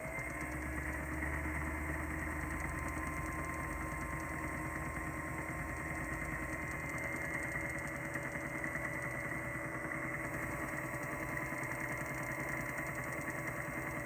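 Electric motor of a rod-building lathe running steadily, spinning a fishing rod while its epoxy-finished thread wraps are wet sanded. It shuts off near the end.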